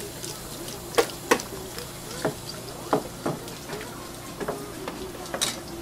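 Hand fish scaler scraping the scales off a parrotfish under running water: a series of sharp, irregular scraping strokes over the steady hiss of water from a hose.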